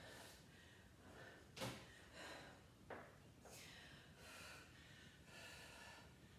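Faint, heavy breathing of a woman catching her breath after exertion, with a light click about three seconds in.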